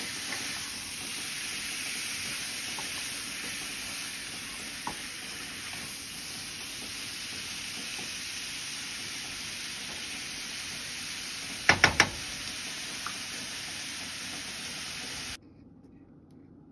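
Chicken pieces with spice masala frying in a stainless steel pan: a steady sizzle, with a wooden spatula stirring. Three sharp knocks in quick succession come a few seconds before the end and are the loudest sounds, and the sizzle cuts off abruptly near the end.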